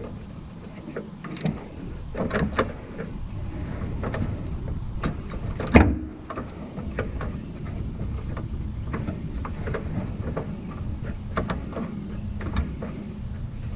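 A socket wrench on an extension bar turning a spark plug into an air-cooled VW engine: scattered metal clicks and knocks as the tool works in a tight space, with one sharp knock about six seconds in, until the plug is snug.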